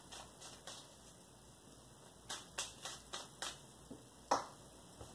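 A deck of tarot cards shuffled by hand, giving soft clicks and flicks as the cards are riffled and cut. There is a quick run of clicks between two and three and a half seconds in, and a sharper one just past four seconds.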